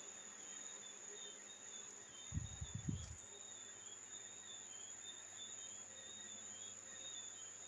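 Faint, steady insect chirping, a run of short high pips repeating through the background, with a few low bumps about two and a half seconds in.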